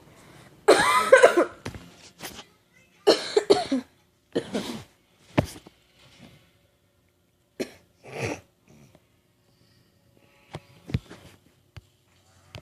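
A person coughing: a series of harsh coughs in separate bursts, the first and loudest about a second in, the last ones near eight seconds. Near the end there are only a few faint short sounds.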